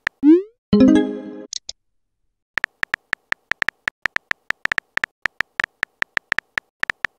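Texting-app sound effects: a rising swoosh and then a short electronic chime as a message goes out, followed after a brief pause by a quick run of keyboard typing clicks, about five a second.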